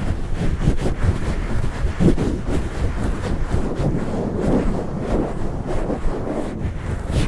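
Hands pumping and swirling over a microphone close up: continuous muffled rumbling handling noise with many small clicks and rubs.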